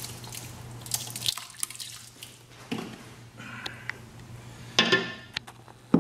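Marinade poured from a glass bottle into a steel stockpot of sliced raw beef, splashing and dripping onto the meat, with a louder knock or clatter about five seconds in.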